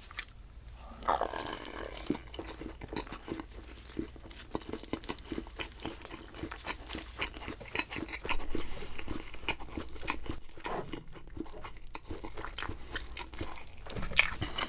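Close-miked chewing of a double-layered bite of pizza: many quick, irregular crunches and wet mouth clicks, louder about a second in, around the middle and near the end.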